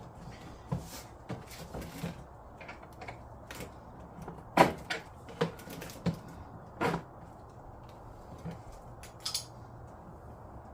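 Scattered knocks and clicks of the ride-on car's plastic body and axle being handled as the axle is slid into place, with the loudest knock about four and a half seconds in and a few more over the next two seconds.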